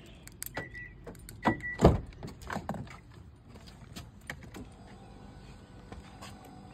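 Kia Sorento driver's door being unlocked and opened: two clicks, each with a short high beep, then a loud thunk of the door latch about two seconds in, followed by lighter clicks and rattles. A faint steady hum sets in near the end.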